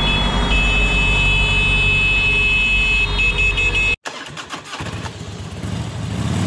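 Street traffic rumble with a few steady high-pitched tones over it, cut off abruptly about four seconds in. A short run of clicks follows, then a motorcycle engine that swells louder near the end.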